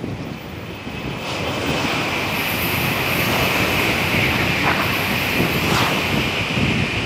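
Tokaido Shinkansen bullet train passing at speed: a broad rushing noise with a strong high hiss swells about a second in and holds as the long train goes by. Wind buffets the microphone underneath.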